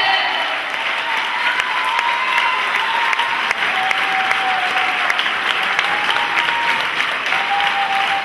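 Audience applauding steadily, a dense patter of clapping hands, with a few faint short held tones over the clapping.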